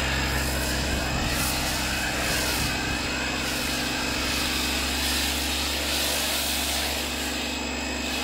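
Pressure washer running steadily, driving a foam cannon: a constant high motor whine over the hiss of the spray.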